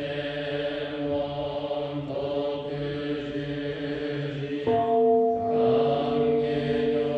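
Buddhist priests chanting a sutra in unison during the temple's morning service, a low droning chant on steady held pitches. About two-thirds of the way through, a new, higher held note comes in suddenly and the chanting grows louder.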